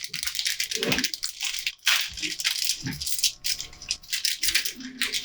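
Rapid, continuous rattling and clicking of small hardware being handled while a desktop computer is assembled.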